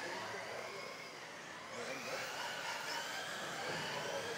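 Several RC off-road race cars with electric motors run around an indoor track. Their motors whine, the pitch rising and falling as the cars speed up and slow down.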